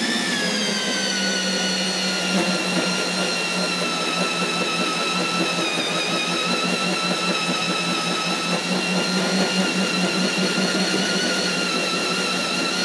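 Electric drill turning a Miyanaga Galvawood core bit through stainless steel sheet, a bit not meant for stainless, with a steady motor whine and a high ringing from the cutter biting into the steel. The pitch sags a little as the bit takes load.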